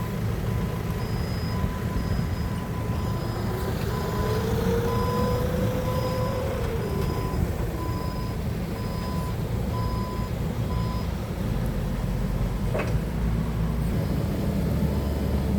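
Forklift engine running, with its reversing alarm beeping about once a second until it stops about 11 seconds in. A whine rises and falls in the middle, and there is a single click near the end.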